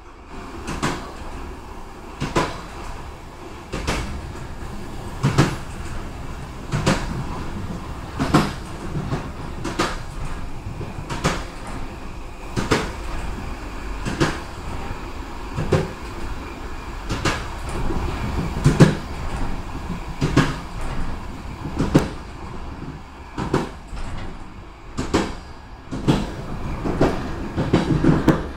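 Passenger train running on jointed track: the wheels clack over the rail joints about once every second and a half, some strikes doubled, over the steady low rumble of the moving train.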